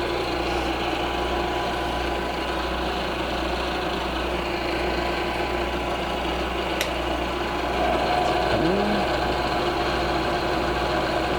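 Milling machine running steadily as its cutter takes a pass across one flat face of an aluminium octagon, a constant hum and whine, a little louder from about eight seconds in.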